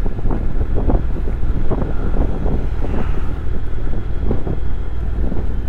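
Motorcycle on the move: wind buffeting the microphone in irregular gusts over the low, steady running of a Honda NC750X's parallel-twin engine.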